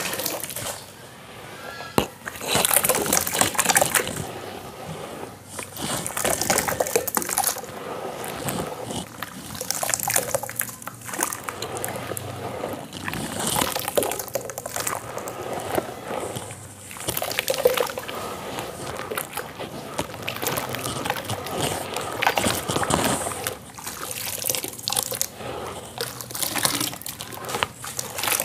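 Handfuls of wet sand slurry lifted by gloved hands and poured back into a tub of watery sand paste, splashing and dripping, in repeated pours every few seconds.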